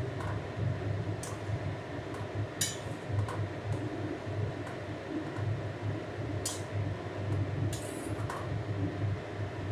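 A metal spatula stirring a watery pea-and-potato curry in a metal kadai, scraping against the pan now and then, over a steady low hum.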